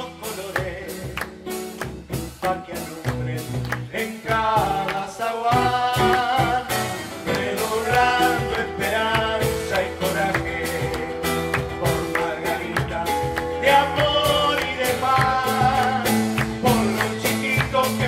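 Live Uruguayan murga-style song: guitar and hand percussion keeping a steady beat, with a man singing in Spanish, the voice strongest from about four seconds in.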